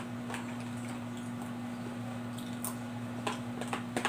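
A few light clicks and taps from a clear plastic food container being handled, over a steady low hum.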